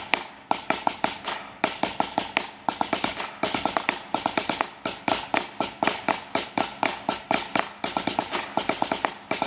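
Snare drum played with drumsticks: a fast, continuous stream of rudiment strokes in a steady rhythm, with regularly recurring accented hits standing out from softer taps.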